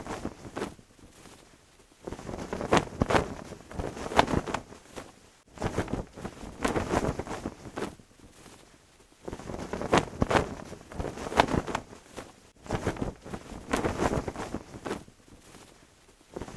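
A cloth flag flapping in gusty wind: bursts of rapid fluttering a few seconds long, with short lulls between gusts.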